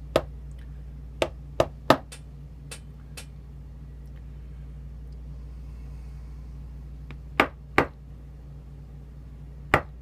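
Sharp little clicks and taps of a brass padlock cylinder and its small metal parts being handled and knocked against a pin tray while its pin springs are being taken out. There is a quick run of about six clicks in the first three seconds, two more around seven and a half seconds, and one near the end, over a steady low hum.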